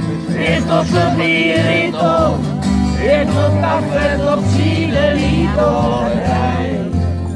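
Acoustic guitar and upright double bass playing a country-style song live, with a voice singing the melody. The bass plays short low notes that step from one pitch to the next.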